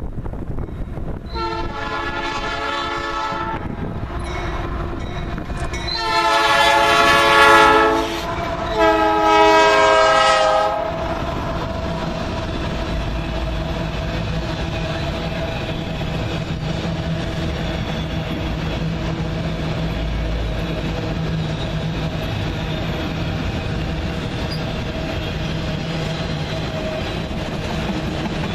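Locomotive air horn sounds three long blasts, each a chord of several steady tones. The train then runs past steadily, its wheels clattering over the rail joints with a steady whine and a low rumble.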